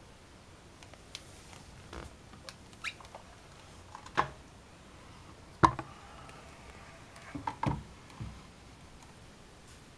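Handling noise: a scattered series of light clicks and knocks, the loudest about halfway through with a brief ring after it, and a few more in quick succession near the end.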